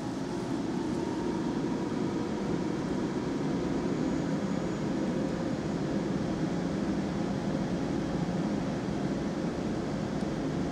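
Steady low drone of workshop background noise, even throughout with no distinct events.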